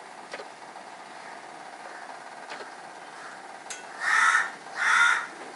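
A few light clicks as boiled corn is lifted out of a steel pan, then two loud, harsh calls about a second apart near the end, over a steady background hiss.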